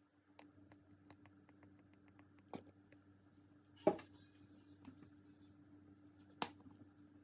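Slime being squished and stretched by hand, making soft wet clicks with three louder sharp pops as air pockets burst, over a faint steady hum.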